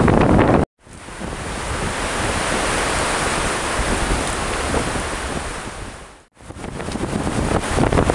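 Strong wind buffeting the camera microphone with a low rumble, cut off abruptly twice. Between the cuts, from about a second in to about six seconds, a rushing hiss of wind through bare birch trees that swells and then fades.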